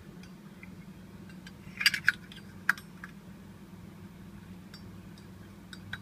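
Metal clinks and clicks of a Zippo lighter's copper-finish case and steel insert being handled. A quick cluster of sharp clinks comes about two seconds in and one more just after, then a few faint ticks, over a steady low hum.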